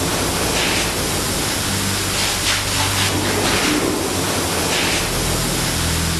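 Spray gun hissing as finish is sprayed onto a carved wooden sofa frame: a steady rushing hiss that swells every second or two.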